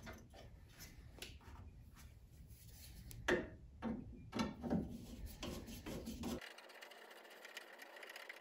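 Hands working a headlight's mounting ring and adjuster parts into place: irregular rubbing and scraping with light clicks and a few sharper knocks in the middle. The handling stops about six seconds in, leaving a faint steady hiss.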